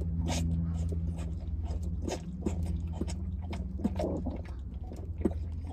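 Baby zebu calf suckling milk from a bottle: wet sucking and smacking clicks, two or three a second at an uneven pace, over a steady low rumble.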